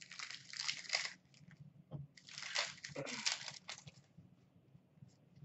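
Faint rustling of trading cards and their pack wrapper being handled, cards sliding against each other as a pack is opened and sorted, in two bursts: one about a second long at the start, another from about two seconds in lasting nearly two seconds.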